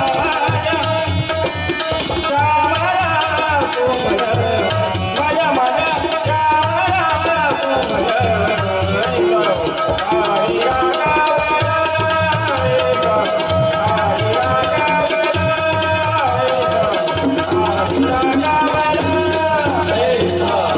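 Live Marathi devotional bhajan: a voice singing a melodic line over steady held accompanying tones, with hand-drum strokes and a constant jingle of small hand cymbals keeping the rhythm.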